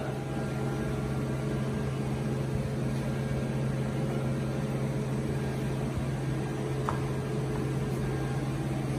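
Steady low machine hum with a constant hiss behind it, and a faint short tick about seven seconds in.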